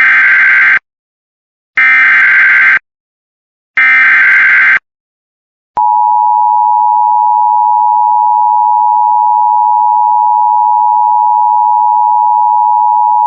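Emergency Alert System activation for a severe thunderstorm warning: three buzzing SAME digital header bursts, each about a second long and a second apart. About six seconds in, the steady two-tone EAS attention signal starts and holds.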